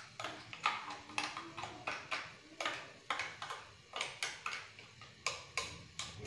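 A metal spoon clinking and tapping against steel cooking pots and containers: a run of light, irregular clicks, two or three a second.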